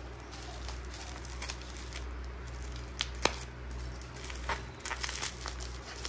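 Packaging wrapping crinkling and tearing as a parcel is unwrapped by hand, with scattered sharp clicks, two louder ones about three seconds in, over a low steady hum.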